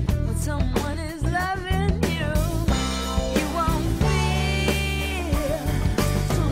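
Background song: a singing voice with wavering held notes over a drum kit and a steady bass line.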